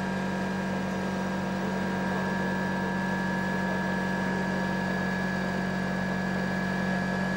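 Steady hum made of several fixed tones, with a fast low throb pulsing underneath.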